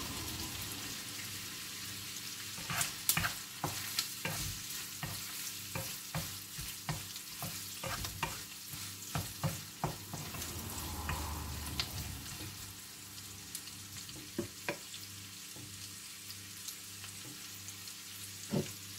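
Chopped onion and garlic sizzling in oil in a wok. A spatula clicks and scrapes against the pan as it stirs, with strokes coming thick and fast for several seconds starting about three seconds in, then only a few more.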